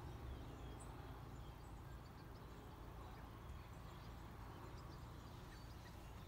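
Quiet outdoor ambience: faint, scattered bird chirps over a steady low rumble.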